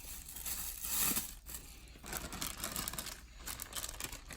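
Plush-toy packaging crinkling and rustling as it is opened by hand, loudest about a second in.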